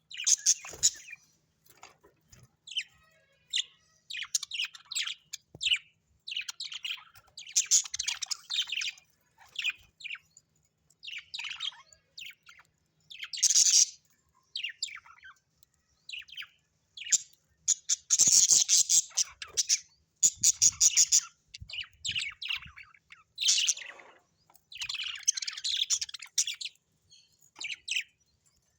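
Budgerigars chirping and chattering in short, irregular bursts with brief pauses between.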